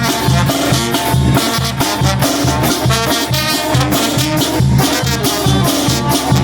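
Oaxacan brass band playing a lively dance tune, with a steady, regular bass beat under brass and percussion.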